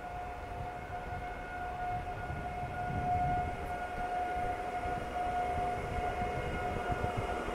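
PESA Elf (EN76) electric multiple unit standing at the platform, its electrical equipment giving off a steady high whine of unchanging pitch over a low rumble.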